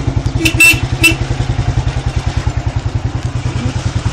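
Motorcycle engine running at low speed with a steady, rapid, even exhaust pulse as the bike rides slowly. A few sharp clattering knocks come about half a second to a second in.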